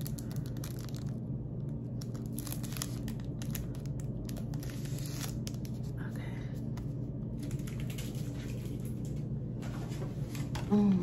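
Pre-waxed paper face wax strips being peeled apart, crinkling and tearing in short irregular spells over a steady low hum. A brief vocal sound comes near the end and is the loudest moment.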